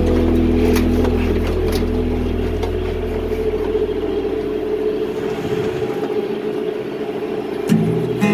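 John Deere 5100E tractor's diesel engine running steadily. A song fades out over the first few seconds, and guitar music starts near the end.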